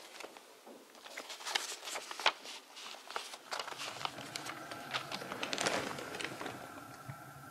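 Paper and small objects rustling and crinkling, with irregular small clicks and knocks as they are handled. A faint steady hum comes in about halfway through.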